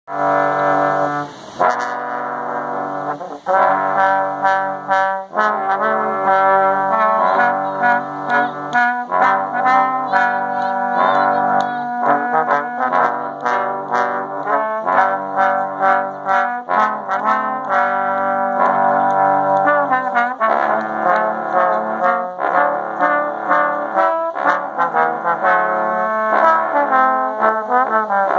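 Trombone quartet playing a Christmas tune in four-part harmony, moving from one held chord to the next, with brief breaks between the opening phrases.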